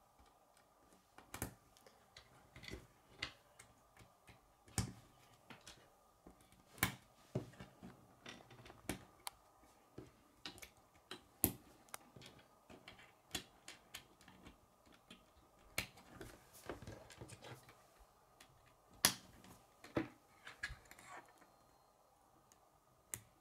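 K'nex plastic rods and connectors snapping and clicking together, with light knocks of the pieces on a wooden table, in irregular single clicks.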